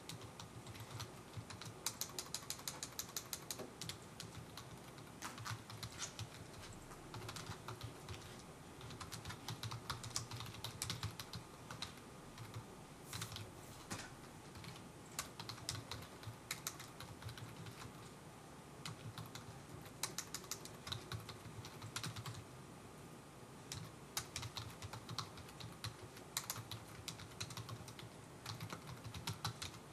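Computer keyboard typing: irregular bursts of quick keystrokes separated by short pauses.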